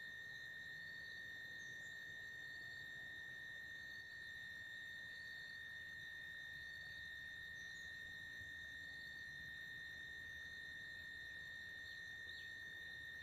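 Faint, steady high-pitched insect chorus, crickets or cicadas holding one unchanging tone, with a couple of very brief faint chirps.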